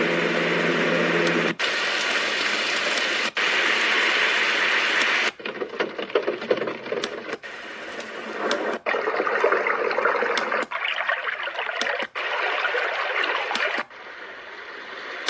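iDealSleep white noise machine stepping through its built-in sounds: a run of steady noise sounds, each one cutting off abruptly and giving way to a different one every one to two seconds.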